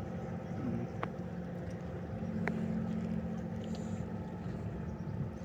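An engine running with a steady low hum that grows a little stronger about two seconds in, with a couple of faint clicks.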